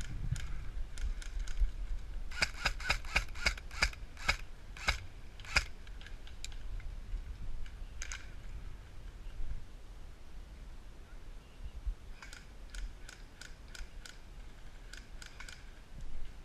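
Airsoft guns firing single shots: sharp clicking cracks in irregular runs, about a dozen in quick succession a couple of seconds in, a lone shot around eight seconds, and another run from about twelve seconds.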